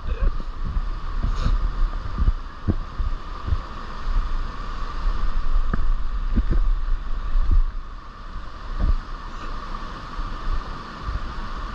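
Rushing water of a creek waterfall, a steady hiss, under an uneven low rumble of wind buffeting the microphone, with a few soft thumps.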